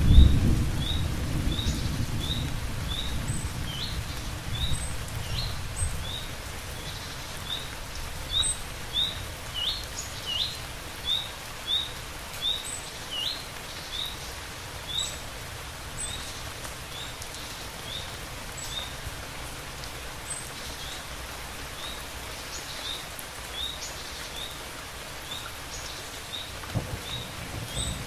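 Steady rain falling, with the tail of a thunder rumble dying away over the first couple of seconds. A bird repeats a short high chirp about twice a second over the rain, the calls growing sparser after the middle.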